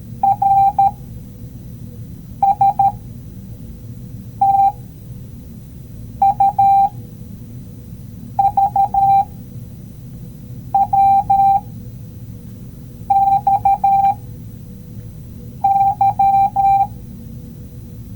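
Morse code sounded as a single steady beep tone, keyed in short dots and longer dashes, one letter-group about every two seconds, eight groups in all. A low steady background noise fills the gaps between letters.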